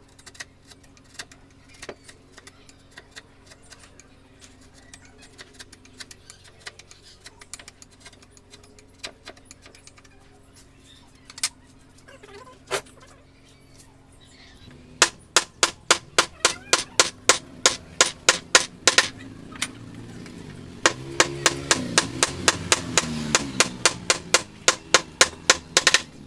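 Wood carving chisel driven into wood with a mallet: light scattered taps at first, then from about halfway through a steady run of sharp strikes, about three a second.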